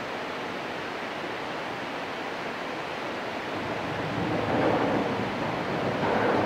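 Steady rush of spillway water, getting louder and rougher from about four seconds in.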